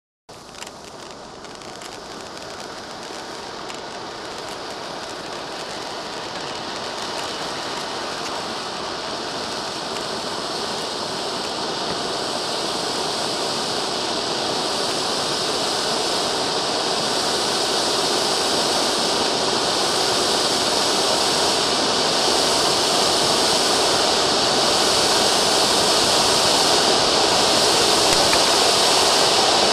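Two TS3205 Volcano cone firework fountains spraying sparks with a steady hiss. The hiss starts abruptly and grows steadily louder as the fountains build.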